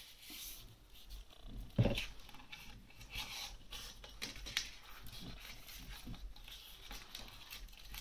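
Plastic glitter gift ribbon and a paper tag rustling and crinkling in the hands as the ribbon is threaded through the tag's hole, with one knock about two seconds in.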